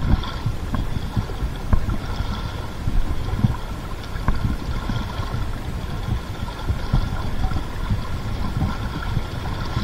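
River in high spate rushing steadily, with wind buffeting the microphone in irregular low thumps.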